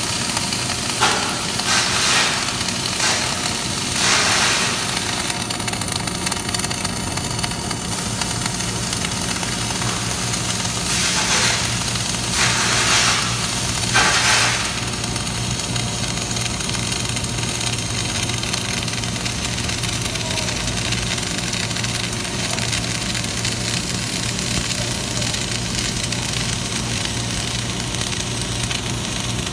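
Gas-shielded wire-feed (MIG) welding arc crackling and hissing steadily, louder in uneven surges during the first half, over a steady low hum.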